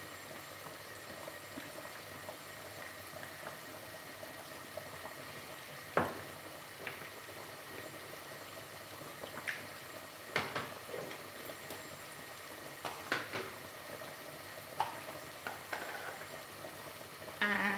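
A pot simmering on the stove, bubbling gently, with a handful of louder pops scattered through.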